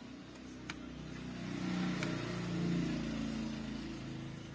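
A motor vehicle's engine passing by, swelling and fading over a few seconds, with a light click about half a second in.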